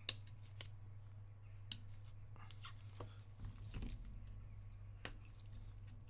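Small tool clicking and tapping on the iPhone 6S's logic board and flex-cable connectors as the connectors are unclipped: a sharp click right at the start, then scattered lighter clicks. A steady low hum sits underneath.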